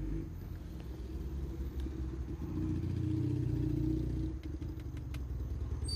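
Motorcycle engine running, swelling louder for a couple of seconds midway and then easing back.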